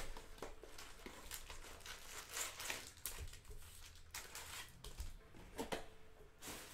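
Cardboard hobby box opened and foil-wrapped trading card packs pulled out and handled, with crinkling and rustling of the foil wrappers; a sharp click right at the start.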